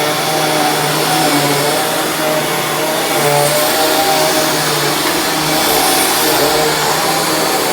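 Dirt Devil Ultra Vision Turbo upright vacuum cleaner running steadily while vacuuming carpet, a loud rushing motor sound with a low hum and a slightly wavering whine.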